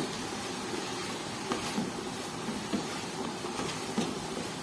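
Wooden spoon stirring shredded chicken in a stainless steel pot over a steady hiss of cooking, with a few faint knocks of the spoon against the pot.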